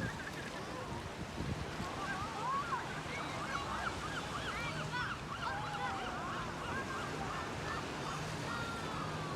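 Birds calling in a group: many short, overlapping calls that rise and fall in pitch, over a steady wash of surf.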